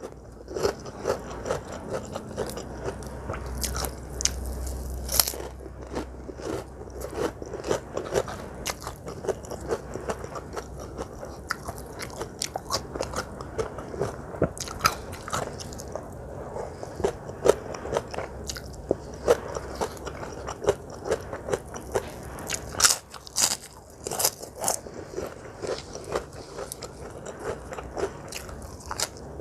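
Close-miked eating: repeated crunchy bites and chewing, with many irregular sharp crunches.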